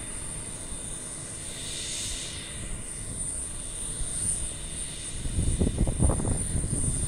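Embraer KC-390's twin turbofan jet engines running: a steady high whine over a low rumble, with a pitch sweep in the middle, and the rumble swelling louder near the end.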